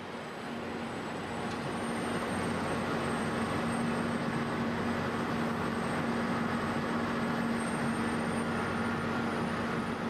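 Diesel engine of a Vögele Super 1900-2 asphalt paver running steadily at close range. It is a constant hum with a low drone tone and grows louder over the first couple of seconds.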